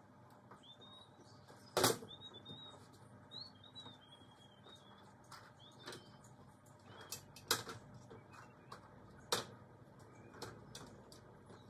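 A stepladder knocking as it is carried and set down on wooden decking: a few sharp knocks, the loudest about two seconds in and two more later on. Small birds chirp faintly in the background.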